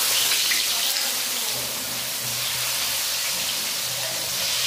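Chopped onions frying in hot oil in a metal kadai: a steady, loud sizzle as handfuls of onion are dropped into the oil.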